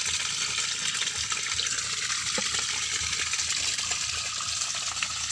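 Water running and rippling steadily into a shallow plastic-lined pond as it is filled, an even rushing hiss.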